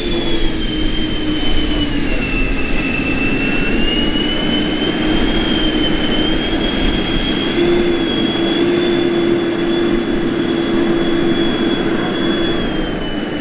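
Electric ducted fans of a large-scale RC Airbus A350 model running at taxi power on grass: a steady high whine over a lower hum, the pitch wandering with the throttle, stepping up about halfway through and dropping back near the end.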